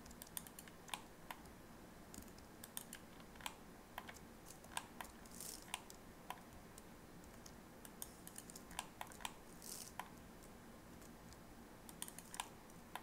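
Computer keyboard keys and mouse buttons clicking irregularly, a few clicks at a time with pauses between, over faint room hiss, as loop cuts are made with Ctrl+R and left and right clicks.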